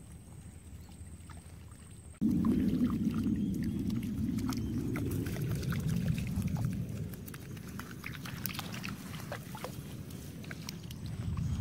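A small dog wading through shallow water: scattered small splashes and patters of its feet over a loud low rumbling noise that starts suddenly about two seconds in.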